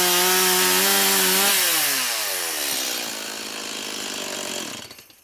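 Stihl MS 180 two-stroke chainsaw at full throttle, its freshly sharpened chain cutting through a birch log. About a second and a half in, the revs fall away and it runs slower and quieter, then the engine stops near the end.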